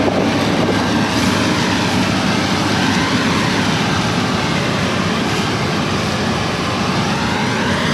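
Combine harvester running close by: a loud, steady mechanical drone of engine and threshing.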